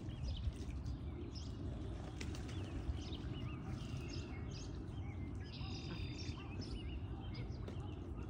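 Ducks dabbling and splashing at a shallow plastic kiddie pool over a steady low rumble, with many small bird chirps throughout and one buzzy call about two-thirds of the way in.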